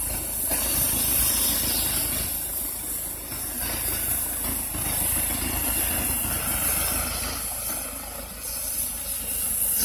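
Landed medical helicopter running on the ground: a steady engine drone with a constant high turbine hiss and a low pulsing underneath.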